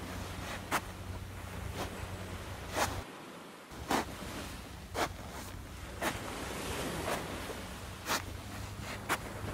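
Footsteps crunching on a shell-strewn beach, about one step a second, over a steady background hiss and a low hum.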